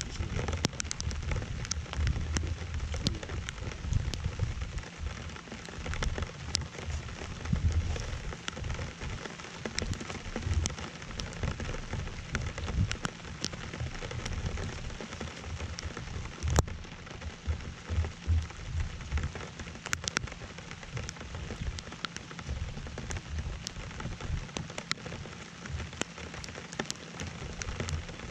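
Rain pattering on the boat and the camera, with many sharp drop clicks over a steady hiss and an uneven low rumble.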